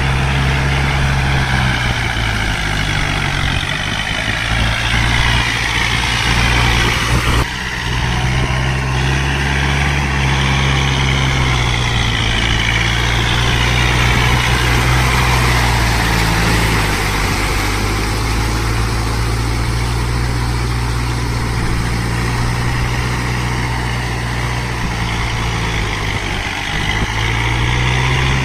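The diesel engine of a 45 hp four-wheel-drive Kubota tractor running steadily under load, as the tractor works a rear implement through a flooded, muddy paddy field. There is a brief drop about seven and a half seconds in.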